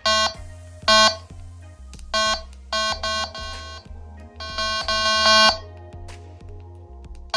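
Flacarp F1 carp bite-alarm receiver beeping electronically as it is switched on and its buttons are pressed. The beeps come as single tones and then quick runs of several, all at one pitch, over a steady background music bed.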